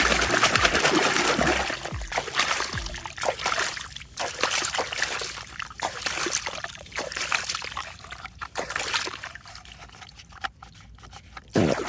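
Water trickling and splashing in uneven spurts, as toy vehicles are washed, quieter over the last few seconds.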